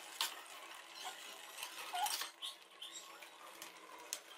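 A few faint, scattered light clinks and taps of a wire mesh strainer against an aluminium pot and a plastic colander while boiled noodles are scooped out and tipped across.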